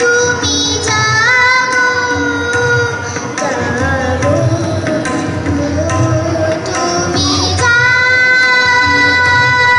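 A young girl singing to her own harmonium, with a tabla keeping a steady rhythm underneath. The harmonium holds long chords at the start and again from near the end, while her voice moves up and down in the middle.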